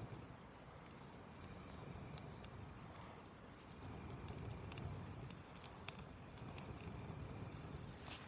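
Wood campfire burning, with faint crackles and a sharp pop about six seconds in over a low rumble. The wood is damp with night dew.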